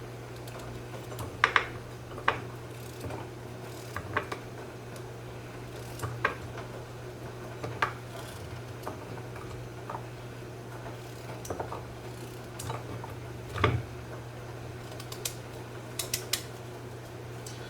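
Light clinks and knocks of kitchenware and utensils being handled, scattered irregularly about once a second or two, over a steady low hum.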